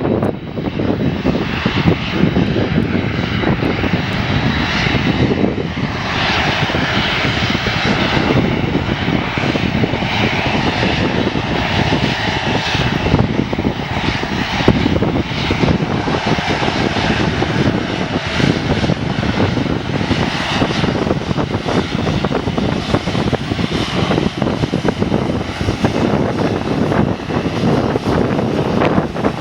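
Jet airliner engine noise, loud and steady, a dense wash of sound with no clear rise or fall.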